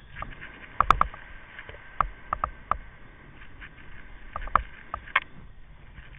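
Kite buggy rattling as it rolls fast over hard beach sand: irregular sharp metallic clanks with a short ring, several close together about a second in and again near the end, over a steady rolling noise.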